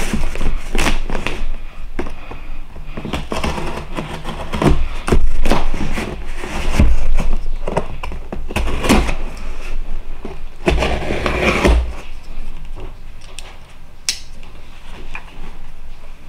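A knife slitting the packing tape on a cardboard shipping box, with repeated scraping, crackling and sharp knocks as the box is handled and its end flap pried open.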